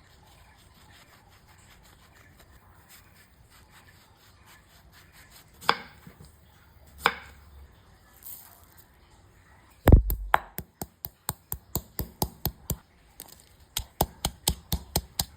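Knife chopping on a cutting board: two single strokes, then a run of quick, even chops at about three a second, pausing briefly before carrying on.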